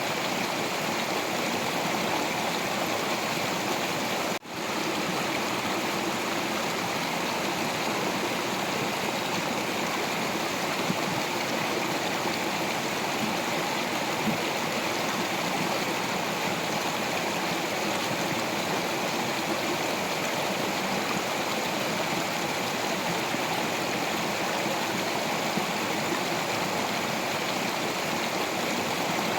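Stream water flowing over rocks: a steady rushing and splashing, with a brief dropout about four seconds in.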